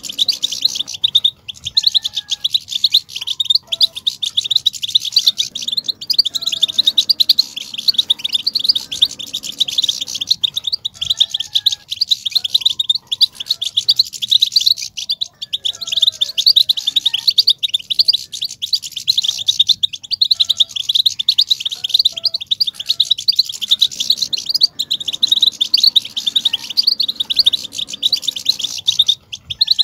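European goldfinches twittering and singing without pause: a dense run of rapid, high tinkling notes and trills. This is the goldfinch chatter ('batbata') played to stir a male goldfinch into song.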